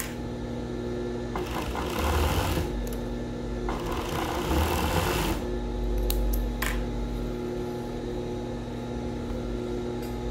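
Siruba industrial sewing machine running while elastic is stitched onto a swimsuit's leg opening: a steady motor hum, with two louder runs of stitching about two seconds and four seconds in.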